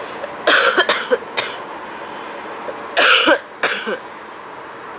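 A woman coughing hard in two fits, several coughs each: the first about half a second in, the second about three seconds in. It is a persistent COVID-19 cough that has been getting worse and that cough syrup and loquat syrup have not eased.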